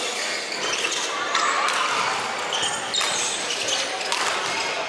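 Badminton rally: a shuttlecock struck by racquets, three sharp hits spaced a second or more apart, over the steady background noise of a large sports hall.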